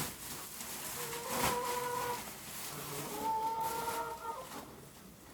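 A farm animal calling twice, each call a steady pitched note lasting about a second, with a single knock about a second and a half in.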